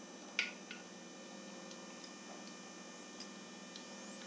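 Moong dal pakodas frying in hot oil in a kadhai: a faint sizzle with a few small ticks. About half a second in, a short, sharper sizzle sounds as another lump of batter drops into the oil.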